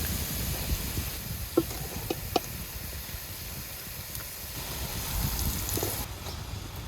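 Steady sizzling hiss of food cooking over an outdoor fire, with a few light clicks near the middle and a low rumble underneath.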